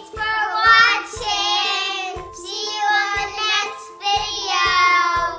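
A child's high voice singing in three long drawn-out phrases over background music.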